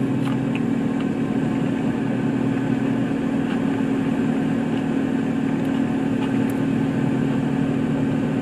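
Steady hum of an idling car engine, with a few faint clicks over it.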